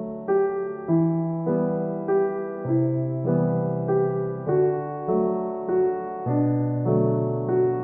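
Background music: a slow, gentle piano or electric-piano melody, a note about every half second over held bass notes.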